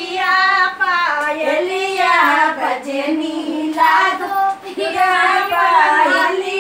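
A woman's high voice singing a Dehati folk song, drawing out long wavering notes.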